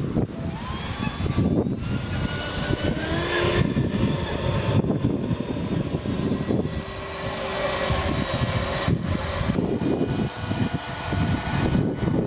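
Twin ducted fans of a homemade RC jet boat whining as the boat drives across the water, rising in pitch over the first few seconds as the fans spool up, then holding steady.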